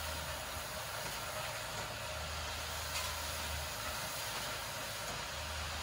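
Vibratory bowl feeder of an automatic lotion pump assembly machine running over steady machine hiss, its low hum cutting in and out: on briefly at the start, again for under two seconds about two seconds in, and again near the end. A faint click about three seconds in.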